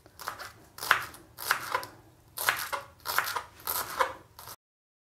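Kitchen knife chopping fresh coriander on a wooden cutting board, a string of irregular chops. The sound cuts off suddenly near the end.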